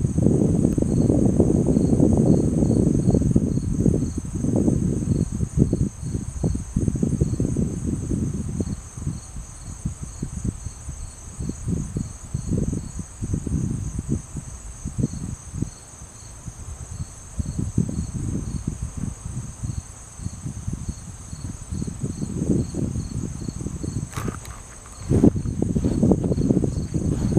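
Crickets and other insects trilling steadily in a high pitch, with a faster pulsing chirp above the trill. Under them runs a loud, uneven low rumble that comes and goes, strongest at the start and near the end.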